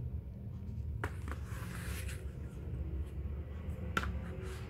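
Stiff pages of a postcard book being turned by hand: a knock about a second in, then about a second of paper rustling, and a sharp click near the end.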